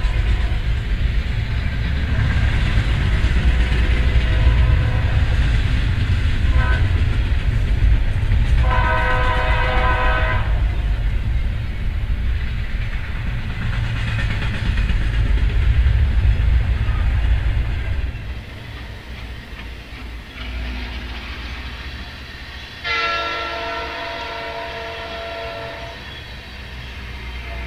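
Double-stack intermodal freight cars rolling past with a loud, steady rumble and clatter, while a train horn sounds briefly about six seconds in and again in a longer blast around nine to ten seconds. About eighteen seconds in the rumble drops to the quieter passing of the Loram rail grinder train, and a train horn blasts again a few seconds later.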